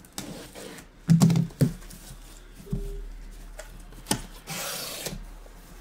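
Cardboard rubbing and scraping as a taped cardboard case of trading-card boxes is opened and the boxes are handled, with a few knocks about a second in and again around four seconds, then a long scraping slide.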